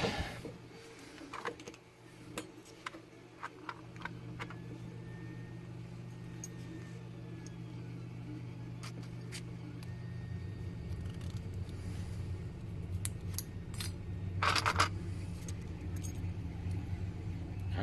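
Scattered light metallic clicks and clinks of small lock parts being handled while a lock cylinder is taken apart, with a denser clatter near the end. A steady low hum runs underneath.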